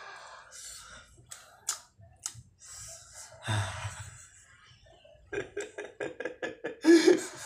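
Eating noises from a bowl of instant noodles: a few sharp clicks of a fork against the glass bowl and a brief burst of mouth noise. Near the end comes about two seconds of quick, pulsing laughter.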